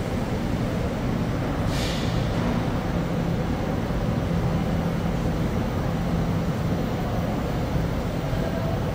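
Steady traffic noise with the low hum of idling vehicle engines, and a short hiss about two seconds in.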